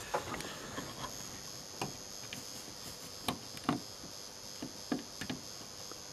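Soldering iron tip and tweezers tapping on a surface-mount chip's pins and a T-con circuit board during hand soldering: about ten small, irregular clicks over a faint steady hiss.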